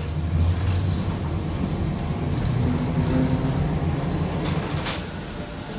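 Heritage streetcar heard from inside the wooden car: a steady low rumble of the car running, with a brief higher tone midway and two sharp knocks about half a second apart near the end.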